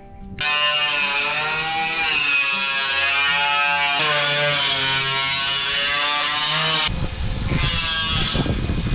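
Cordless power drill motor running in two long runs, its pitch wavering under load as it drives screws, followed by a rougher, low rumbling noise near the end.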